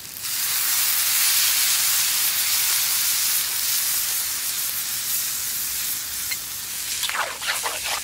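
Beef stock hitting a hot mess-kit pan of caramelized onions over a campfire, sizzling with a loud, steady hiss that starts sharply and slowly dies down as the pan deglazes. Near the end come a few short scraping sounds as the pan is stirred.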